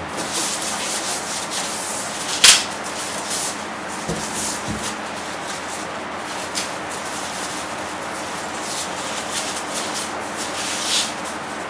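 Clear plastic bag crinkling and rustling as a media player wrapped in it is handled and lifted out, with many small crackles. A single sharp knock comes about two and a half seconds in.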